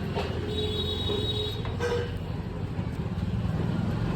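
A motor vehicle's engine running steadily with a low rumble. A thin steady whine sounds over it for about a second, starting half a second in.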